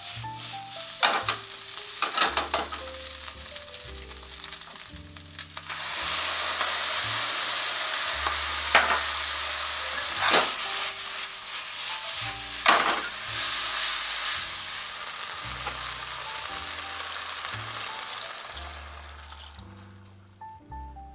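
Mushrooms, onion and bacon sizzling in a frying pan as they are stir-fried with a spatula, with a few sharp scrapes and knocks of the spatula on the pan. The sizzle turns louder and steadier about six seconds in and dies away near the end. Soft background music plays under it.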